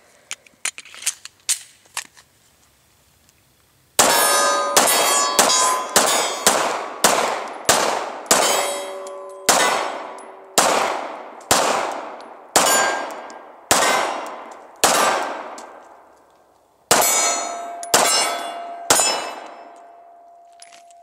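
Glock 19 Gen 4 9mm pistol fired one-handed in a long, fast string of about twenty shots, roughly two a second, with a short pause before the last few. Steel targets clang and ring after the hits, and one plate keeps ringing after the last shot. A few light clicks of pistol handling come first.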